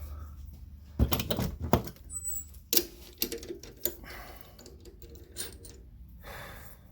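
Small metal parts and tools being handled at a workbench: a series of sharp clicks and knocks in no regular rhythm, the loudest about a second in.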